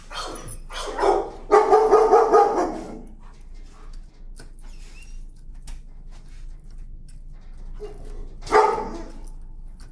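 Dogs barking in shelter kennels: a run of loud barks in the first three seconds, a quieter stretch with faint scattered clicks, then another loud burst of barking near the end.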